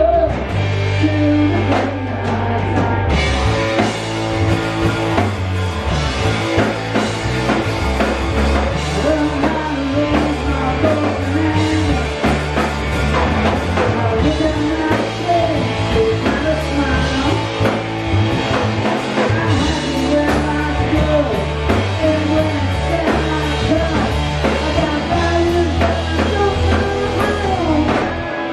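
Live rock band playing at full volume: electric guitars and bass over a driving drum kit, with a man singing lead.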